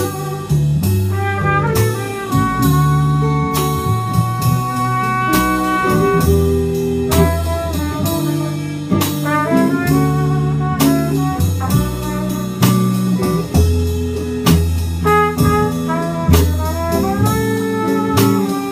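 Live jazz band in an instrumental passage: trumpet leads the melody over electric guitar, double bass and drum kit.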